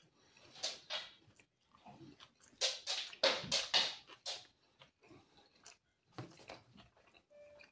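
Close-miked mouth sounds of a man chewing a mouthful of meat pizza: irregular wet chews and smacks, thickest about three to four seconds in.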